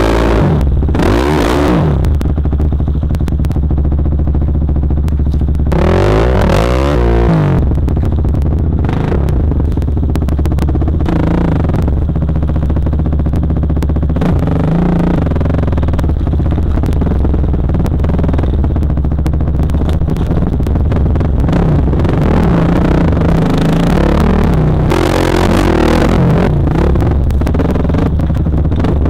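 KTM dirt bike engine running loud under load, revving up and down as the throttle opens and closes on a rough trail climb. Frequent clattering knocks from the bike and mount jolting over the rocky ground.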